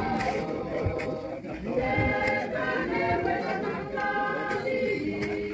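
Several voices singing together in held notes that step from pitch to pitch, with talk from the crowd underneath.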